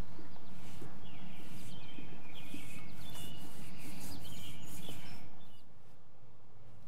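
Birds chirping, a run of short high calls in the first few seconds, over a steady background hiss that drops quieter near the end.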